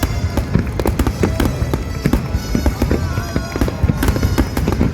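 Fireworks finale: a rapid, unbroken barrage of shell bursts and crackles, many bangs a second.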